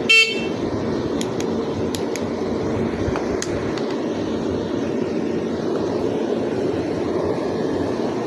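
Steady low mechanical rumble, like a running vehicle or machine, with a brief loud pitched sound right at the start and a few faint clicks in the first few seconds.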